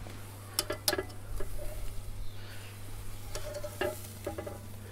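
T-bone steak sizzling on the grate of a charcoal kamado grill, with metal tongs clicking against the meat and grate a few times.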